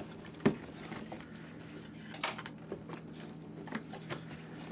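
Cardboard box being opened by hand: flaps pulled back and packing handled, with scattered rustles and a few sharp knocks, the sharpest about half a second in.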